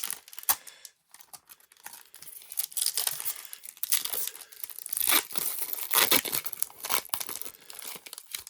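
Foil booster-pack wrapper of Pokémon cards being torn open and crinkled, in irregular rustling bursts with a few sharp clicks.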